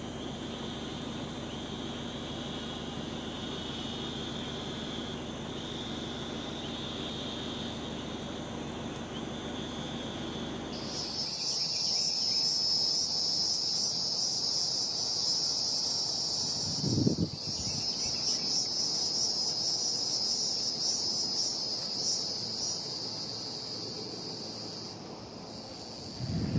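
A loud, steady, high-pitched drone of insects starts suddenly about a third of the way in and fades near the end, over a faint low hum. One brief low thump comes about two-thirds of the way through.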